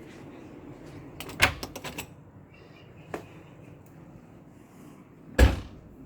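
A door being handled: a quick rattle of clicks and knocks about a second in, a single click midway, then one loud thump near the end, like the door shutting.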